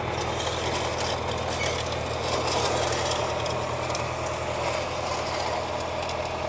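Tractor engine running at a steady speed, with light rattling from the freshly hitched corn planter behind it.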